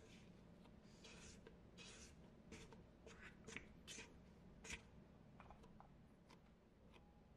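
A spatula scraping the sides of a metal mixing bowl and working sticky whole-wheat bread dough: a run of short, faint scrapes, each under a second apart.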